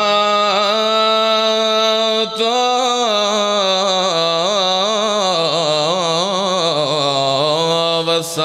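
A man chanting into a microphone in a long, drawn-out melodic line, holding notes and winding the pitch up and down, with short breaks for breath about two seconds in and near the end.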